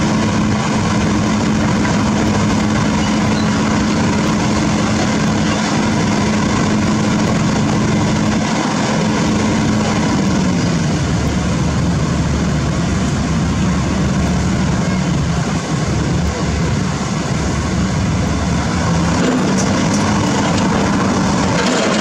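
Heavy diesel construction machinery running steadily at the drilling site; the engine note drops in pitch about ten seconds in and rises again near the end as engine speed changes.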